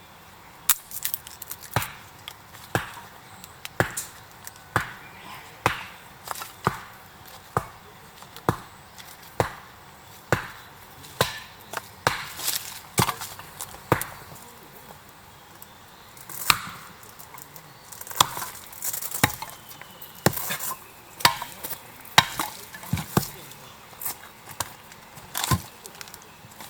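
Firewood being split by hand: sharp wooden knocks of a blade striking the wood, about one a second, some a little fainter or doubled.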